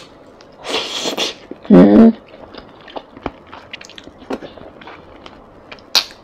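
Close-miked eating sounds: a wet, noisy bite about a second in, followed by a short hummed 'mm', which is the loudest sound. Then come soft chewing clicks and lip smacks, and another sharp bite or slurp near the end.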